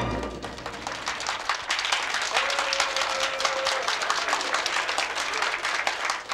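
Studio audience applauding: many hands clapping in a dense, steady patter.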